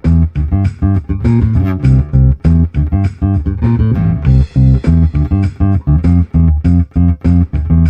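Fender American Ultra P/J electric bass played through a Traynor YBA300 tube bass amp, a clean, steady line of picked notes, several a second, over a drum loop. The sound is the miked speaker cabinet blended with the amp's DI output.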